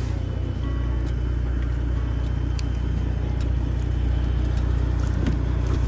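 Fishing boat's engine running with a steady low rumble, with scattered light clicks over it.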